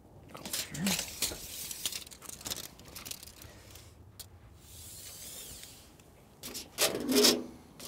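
Scraping and rubbing of hands and tools against the window frame, with a smooth hiss about five seconds in and a louder scrape near the end.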